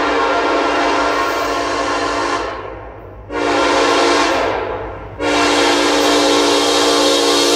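Norfolk Southern diesel locomotive's air horn sounding three blasts as the freight train approaches: the first ends about two and a half seconds in, the second starts about a second later and fades out, and the third starts about five seconds in and is held.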